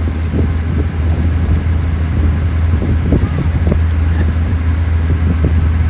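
Steady low engine drone, with wind buffeting the microphone.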